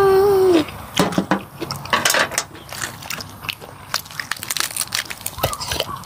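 A child's short, loud, high-pitched squeal that slides down at its end, followed by close-up eating sounds: repeated biting, crunching and chewing of noodle-soup food and raw greens.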